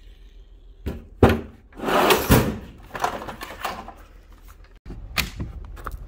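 Rummaging through a metal toolbox: tools, chargers and cords clatter and knock against the drawer, with a longer rustle of things being shifted about two seconds in and a few sharp knocks.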